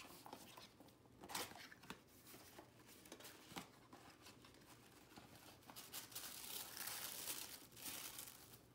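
Paper packaging rustling and crinkling as a small cardboard box is opened and its paper-wrapped contents are pulled out. There is a brief louder rustle about a second and a half in, and a longer stretch of crinkling from about six to eight seconds.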